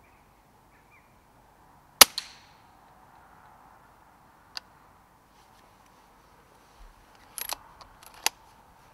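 A single shot from a Daystate Huntsman Safari PCP air rifle about two seconds in: a sharp report with a second, smaller crack a fraction of a second later. Later come a faint click and, near the end, a few sharp clicks as the rifle's action is worked.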